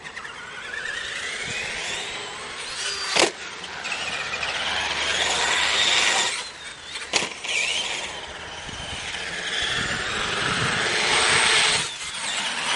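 Traxxas Summit RC monster truck's electric motor and gears whining, the pitch rising and falling with the throttle, over tyre noise on concrete. Two sharp knocks about three and seven seconds in.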